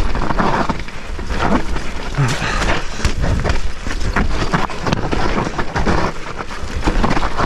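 Electric mountain bike rolling fast down a rough dirt singletrack: tyre noise on mud and roots, with frequent short knocks and rattles from the bike over bumps, over a constant low rumble of wind on the helmet-mounted camera.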